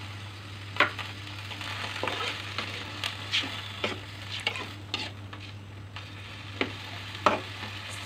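Vegetables sizzling in an aluminium wok with a little water added, cooking down, while a metal spatula stirs them, with scattered sharp clicks and scrapes of the spatula against the pan.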